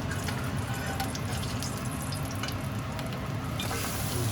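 Sandwich frying in oil and butter in a hot pan: a steady sizzle with scattered crackles, the hiss growing louder near the end.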